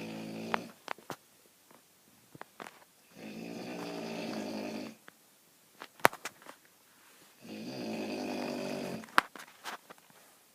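Snoring: the tail of one snore just after the start, then two full snores, each about a second and a half long and about four seconds apart. Sharp clicks fall between the snores, one of them loud, about six seconds in.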